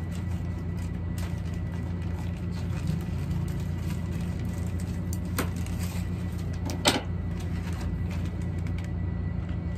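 A plastic courier pouch is being opened by hand, with two sharp crackles about five and a half and seven seconds in, over a steady low hum.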